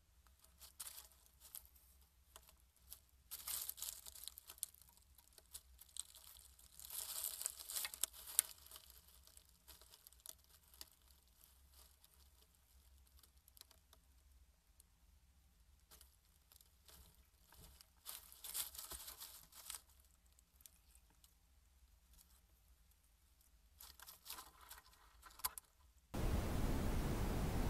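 A small rodent rummaging through dry straw bedding, in irregular bursts of crackling rustle with quiet gaps between them. Near the end the sound switches abruptly to a steady hiss.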